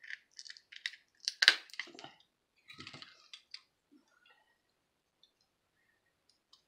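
Pliers clicking and crackling against the small plastic and metal parts of a walkie-talkie being taken apart by hand: a scatter of short clicks, the sharpest about a second and a half in, dying away after about three and a half seconds.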